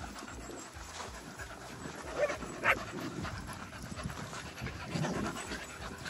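Dogs panting hard as they run about in a pack, with a couple of short sharper sounds about two and a half seconds in.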